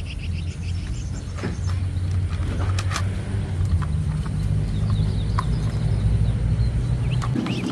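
A steady low rumble that stops shortly before the end, under a few sharp clicks and knocks of a plastic toy car body being pressed onto its chassis and turned over in the hands. Faint bird chirps.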